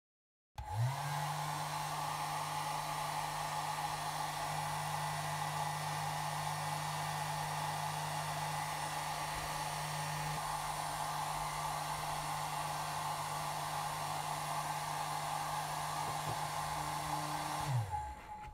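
Compact handheld hair dryer running: it switches on about half a second in and spins up quickly, blows with a steady motor hum and rushing air, then winds down and stops near the end.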